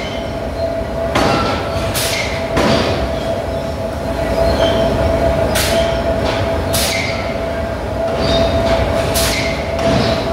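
A 3.5-ton friction-belt drop forging hammer striking hot metal: about seven metallic blows at irregular spacing, several with a brief ring, over a steady hum.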